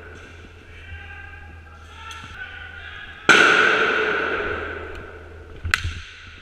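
A single loud bang about three seconds in, echoing through the big open hall and fading away over about two seconds, followed by one sharp crack near the end.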